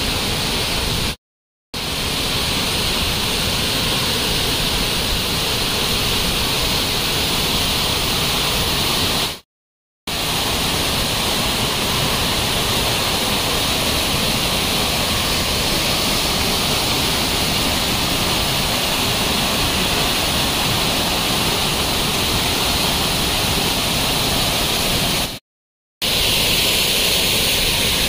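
Waterfall and the rocky river below it rushing in a steady, loud hiss-like roar, broken three times by a brief cut to dead silence.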